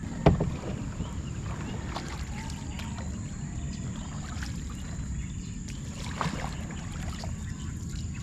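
Small boat drifting on the water: a steady low wash of water and wind, with a sharp knock against the boat just after the start and a fainter one about six seconds in.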